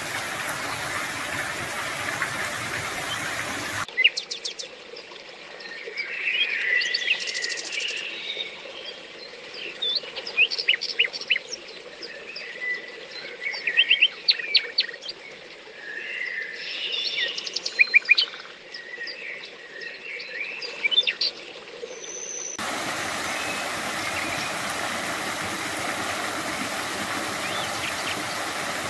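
Steady rushing of water, then about four seconds in it cuts abruptly to a stretch of small songbirds chirping and singing in quick, repeated notes. Near the end it cuts back to the steady rush of a small waterfall splashing over a sandstone ledge.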